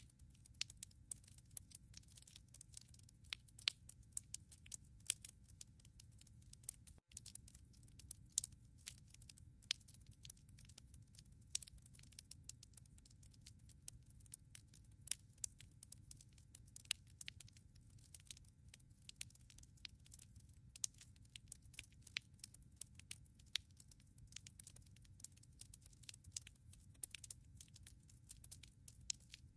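Wood logs burning in a fireplace, crackling with frequent irregular sharp snaps and pops over a low steady background of the fire.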